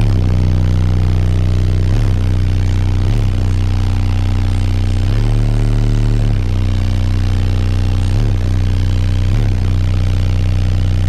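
Car-audio subwoofers in a BMW E38 playing very loud, sustained deep bass notes, the note dipping or changing every second or two. This is the first run of a newly installed high-power competition system.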